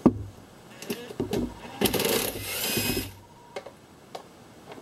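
Handheld cordless power tool with a 10 mm socket running for about a second to back out a bolt, with metallic clicks and clinks of the socket and bolt before and after.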